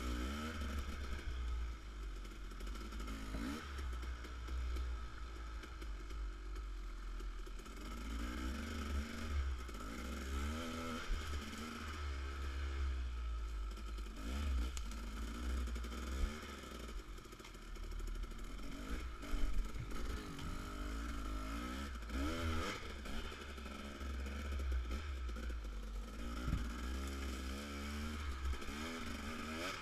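Dirt bike engine revving up and down again and again as the bike picks its way along a trail, heard from a microphone mounted on the handlebars, over a steady low rumble.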